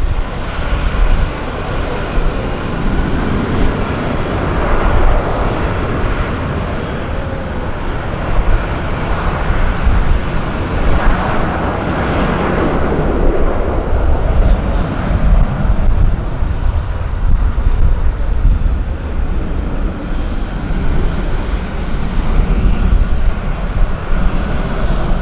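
Aircraft engines running: a loud, continuous rumble that swells about halfway through.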